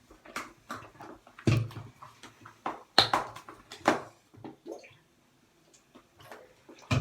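Homemade glue-and-saline slime being stirred in a bowl: irregular wet squelches and clicks of the utensil against the bowl, with a short pause about five seconds in. The slime is still too sticky and has not yet come together.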